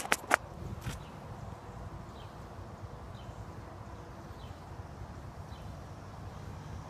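Audi 32-valve V8 idling with a low steady rumble from the exhaust, after a few sharp knocks at the very start from the phone being handled.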